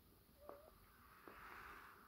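Faint breathing of a sleeper between snores: a small click and a brief wavering squeak about half a second in, then a soft, hissy breath that builds through the second half.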